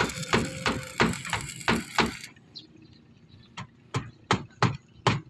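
Hammer blows on the wooden and steel formwork at about three strokes a second. They pause about two seconds in, then start again at the same pace. Under the first two seconds runs the steady crackling hiss of an arc welder, which cuts off suddenly.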